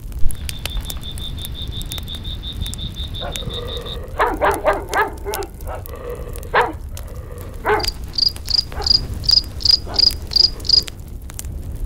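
Crickets chirping at night: a fast, steady trill for the first four seconds, then a slower chirp of about three a second near the end, over the crackle of a wood campfire. A few short calls sound in the middle.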